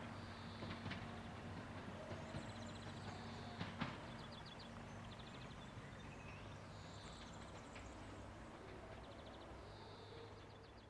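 SA136 diesel railbus pulling away into the distance: a faint, steady engine drone that slowly fades, with a few sharp clicks from the wheels on the track. Birds chirp faintly several times.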